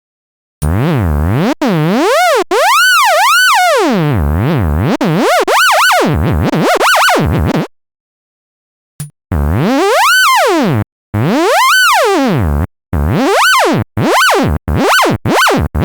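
Synthesized sonification tones made from a traced shape's outline: a buzzy pitched tone with many overtones sliding up and down in repeated arches. It comes in two phrases separated by a pause of about a second and a half, and the sweeps come faster near the end.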